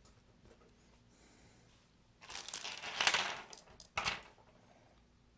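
Small repair tools and phone parts being handled: a scraping rustle about two seconds in, then a sharp click a second later.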